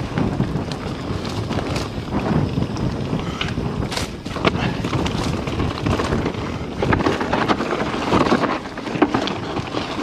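Scor 4060 ST mountain bike descending a dirt and rocky singletrack at speed: steady wind rush on the microphone over the tyres rolling on the trail and the bike rattling, with a few sharp knocks from hits on the rough ground.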